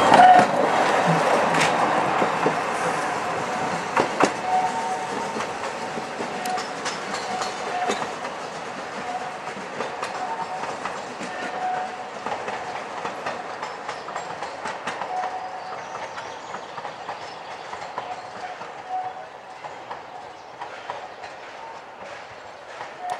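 Narrow-gauge passenger coaches rolling past and away, wheels clattering over the rail joints with scattered clicks, fading steadily as the train recedes. A thin wheel squeal comes and goes on the curving track.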